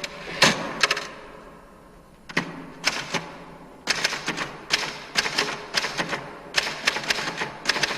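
Typewriter typing in fast clusters of keystrikes: a short burst at the start, a pause of about a second and a half, then steadier typing that keeps going.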